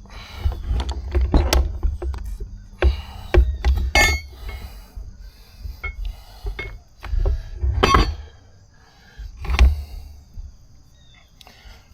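Hands working on scooter parts: irregular clicks, knocks and rattles with dull low bumps, the loudest knocks about 1.5 s in, near 4 s, near 8 s and near 9.5 s.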